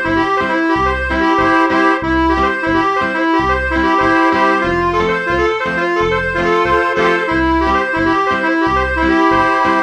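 Roland FR-1x digital accordion playing a tune through one of its user program sounds, the melody over a steady, rhythmic bass-and-chord accompaniment.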